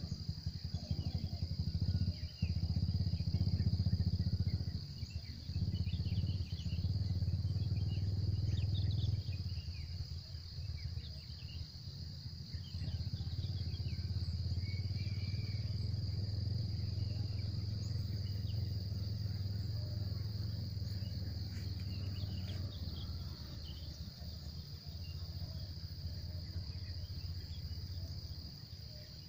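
Insect chorus droning as one steady high-pitched note. Under it runs a louder low rumble that swells and eases, strongest in the first half.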